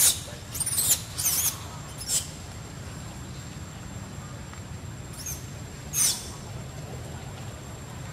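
Baby macaque screaming: short, very high-pitched shrieks, each rising and falling in pitch, four in the first two seconds and one more about six seconds in.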